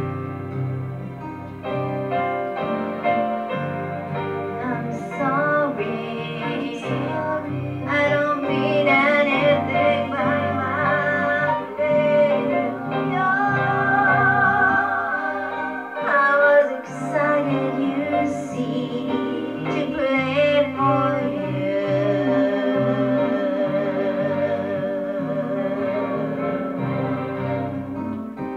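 A song playing: a voice singing a melody with vibrato over instrumental backing and low bass notes.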